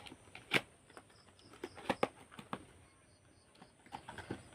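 A delivery package being opened by hand: scattered taps, clicks and rustles of packaging, a few louder ones about half a second in and around two seconds in.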